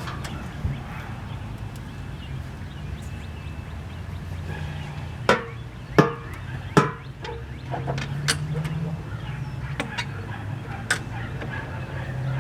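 Three sharp knocks about a second apart midway, with lighter clicks and a steady low hum underneath: hard parts clunking as the radiator of a 2014 Chevy Sonic is worked loose and out of the car.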